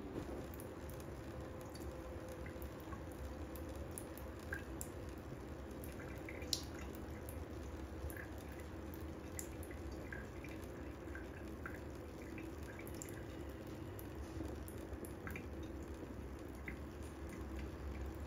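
Thin stream of water trickling from a kitchen faucet into a stainless steel sink, with scattered drips and small ticks throughout. One sharper click about six and a half seconds in.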